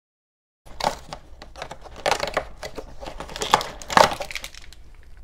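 Hands handling a small plastic toy figure and its cardboard packaging: a run of light clicks, taps and rustles, with the loudest knocks about two and four seconds in. It starts a little under a second in, after a moment of dead silence.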